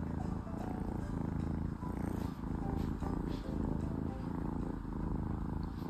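Kitten purring steadily, a low rumble that pulses with its breathing about twice a second.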